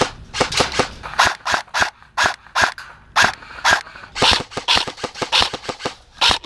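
Airsoft rifle firing rapid single shots, sharp cracks at about four a second, steady and unbroken.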